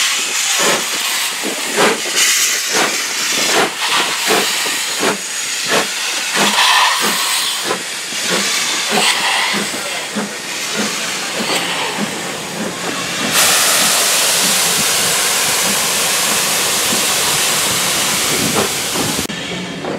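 Ivatt Class 2MT 2-6-0 steam locomotive pulling away: a steady run of sharp exhaust beats that quicken as it gathers speed, over the hiss of steam from open cylinder drain cocks. About two-thirds in, the beats give way to a steady loud hiss that cuts off abruptly near the end.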